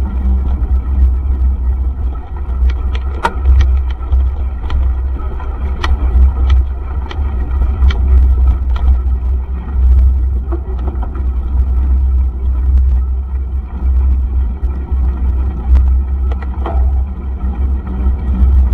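Mountain bike ridden fast on a gravel track: a steady low rumble of knobby tyres and wind on the microphone, with scattered clicks and rattles from the bike over the stones.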